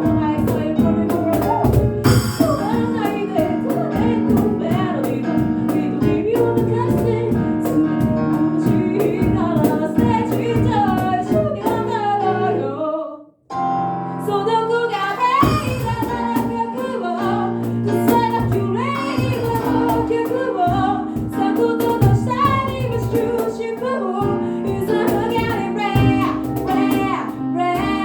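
Amateur a cappella group singing in several-part harmony, led by female voices over a steady beat. The sound cuts out briefly about halfway, then the singing resumes.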